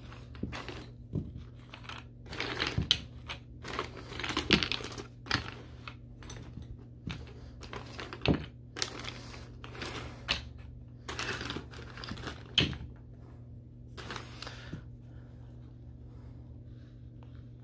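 Hard plastic blocks of a 4-way pressure clamping system clicking and knocking against each other as they are handled and set down, in irregular sharp clicks, thinning out over the last few seconds.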